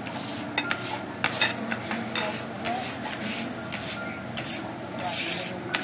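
Metal hibachi spatula scraping across a hot steel flat-top griddle in quick, repeated strokes, over a steady sizzle, with one longer scrape near the end.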